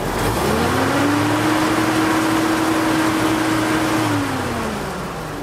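1943 Chevrolet M6 bomb truck's straight-six engine revved up from idle, held at a steady higher speed for about three seconds, then let back down to idle near the end.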